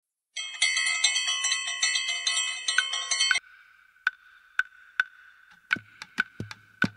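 A bright, chiming bell-like passage for about three seconds that cuts off suddenly. Then sparse wood-block clicks start at about two a second and quicken near the end, joined by low drum hits: the opening percussion of a spiritist song.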